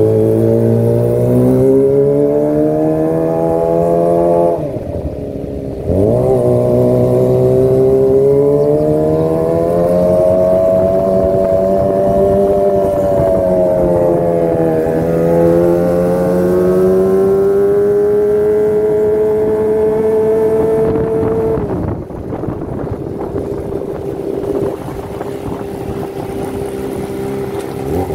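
Sport motorcycle with a Yakuza aftermarket exhaust ridden along at moderate speed, its exhaust note rising and falling with the throttle. The throttle closes about four seconds in and opens again sharply a second later, then eases off for the last few seconds.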